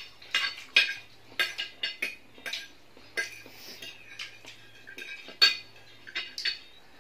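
Metal forks clinking and scraping against a ceramic plate of noodles: a dozen or so short, irregularly spaced clinks.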